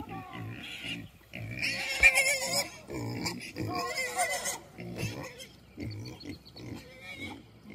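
Pigs grunting repeatedly in short low pulses, with a louder, higher-pitched stretch of squealing calls about two to four seconds in.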